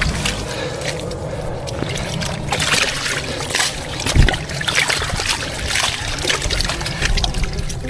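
Wet mud and water squelching, trickling and splashing in irregular strokes as a mud crab burrow on a tidal mudflat is dug out, over a steady low rumble.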